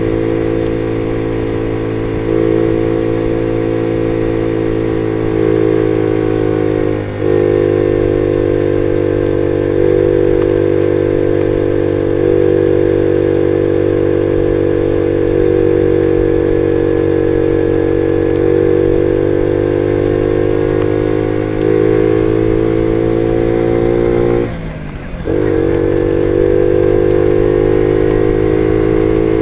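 Jawa Betka 50 moped's small two-stroke single-cylinder engine running under way at a steady speed, heard from on board. The engine note dips briefly about seven seconds in and again a few seconds before the end, where the pitch drops and climbs back up.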